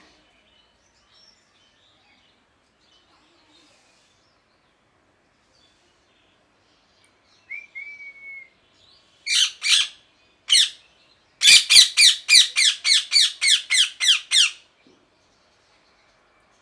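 Pet ringneck parakeet calling. A short whistle comes about eight seconds in, then two loud screeches, then a rapid run of about a dozen harsh screeches at roughly four a second, lasting about three seconds.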